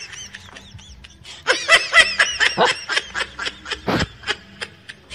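A person laughing in quick, rhythmic bursts, loudest from about a second and a half in, with some higher giggling before.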